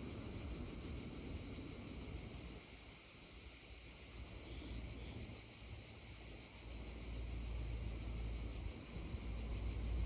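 Cicadas droning in a steady, high-pitched chorus over the soft babble of a shallow stream, with a low rumble coming up in the last few seconds.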